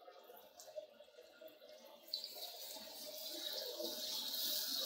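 Onion-tomato masala frying in oil in an aluminium karahi, sizzling and stirred with a wooden spatula. The sizzle is faint at first, then from about two seconds in it turns into a high hiss that grows steadily louder.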